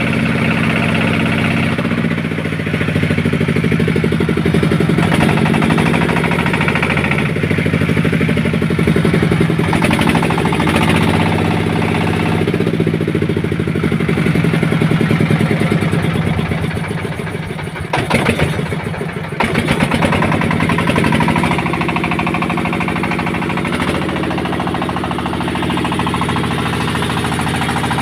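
An engine running steadily with a fast, even knock, with a short burst of sharper knocking about two-thirds of the way through.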